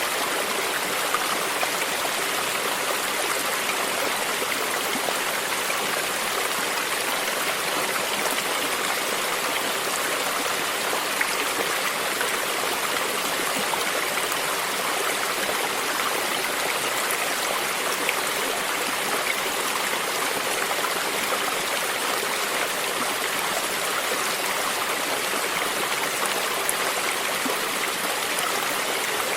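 Stream water running and lapping steadily over rocks, a constant, even rush with small splashes and trickles.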